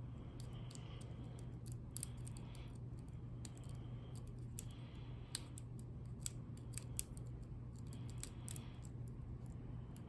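Lock pick and tension wrench working in the keyway of a Kryptonite padlock: scattered small metallic clicks and ticks with stretches of faint scraping, over a steady low hum.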